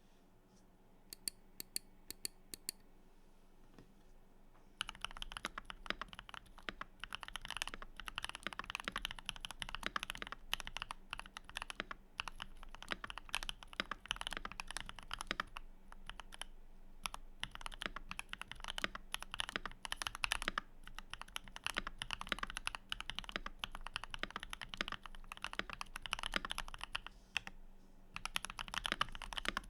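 Keychron V1 75% mechanical keyboard being typed on at a steady pace from about five seconds in, with a couple of short pauses. Before that, a handful of sharp separate clicks.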